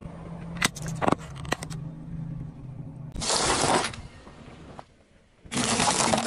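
A car tyre rolling over and crushing vegetables: a few sharp cracks as the stalks snap about a second in, then a wet crunch as a corn cob is squashed, and another crunch near the end. A low steady hum runs under the first half.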